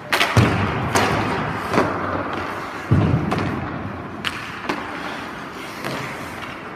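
Hockey goalie's skates scraping and carving on the ice as he shuffles across the crease and drops into the butterfly, with a series of sharp knocks and a heavy thud about three seconds in.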